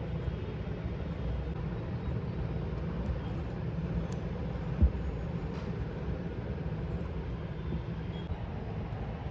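Steady low hum of distant city traffic, with one short thump a little under five seconds in.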